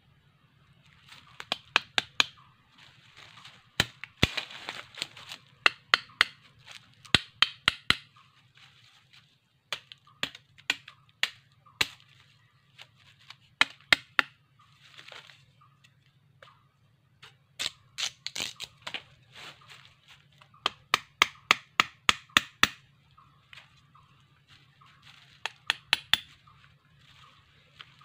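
A knife cutting and shaving a thin wooden stick by hand. Clusters of sharp cracks and clicks come in quick runs of several at a time, with scraping in between.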